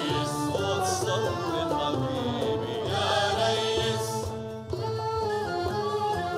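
Live Arabic music: a male singer's voice over a violin and orchestra. About four and a half seconds in there is a brief drop, and the instruments carry on with steadier held notes.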